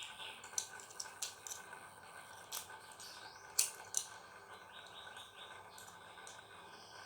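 A few faint, sharp clicks and taps, scattered irregularly, the loudest about three and a half seconds in, with brief faint chirps in the middle.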